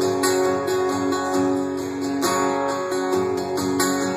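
Acoustic guitar strummed in a steady rhythm, playing chords in an instrumental passage between sung lines.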